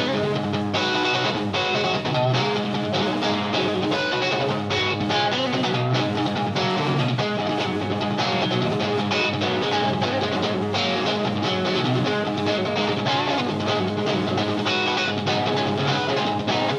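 A blues-rock band plays instrumentally, led by a Stratocaster-style electric guitar through a Marshall amp over bass and drums, at a steady beat.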